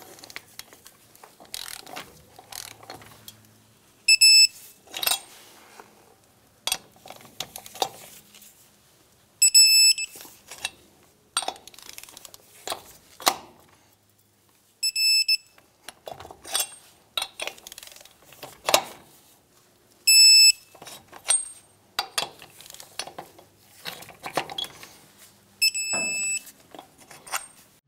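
Electronic torque wrench beeping five times, about every five and a half seconds, as each lug nut reaches its set torque of 100 foot-pounds. Between the beeps come short metallic clicks and knocks of the wrench and socket being moved from nut to nut.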